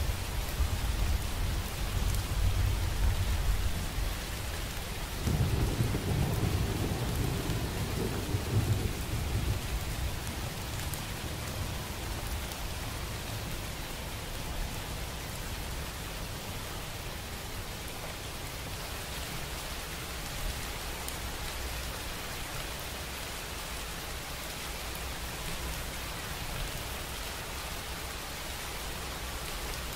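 Steady rain falling, with a rumble of thunder: the thunder is going at first, swells again about five seconds in and dies away by about ten seconds, leaving only the rain.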